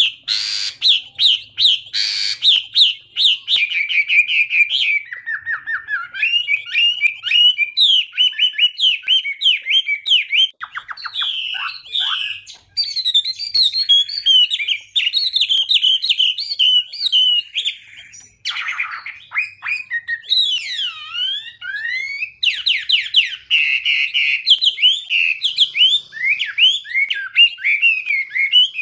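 Chinese hwamei singing: a long, varied song of rapid whistled notes, fast trills and rising and falling sweeps, with short breaks about twelve and eighteen seconds in.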